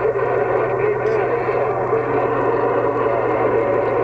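CB radio receiving a weak long-distance transmission on the 27 MHz band: static with steady whistling tones and indistinct, garbled voices, over a constant low hum.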